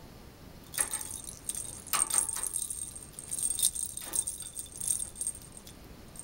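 A small bell inside a hanging plastic lattice ball toy jingling and rattling in irregular bursts as a rosy-faced lovebird shakes and batters it. The bursts begin about a second in and stop shortly before the end.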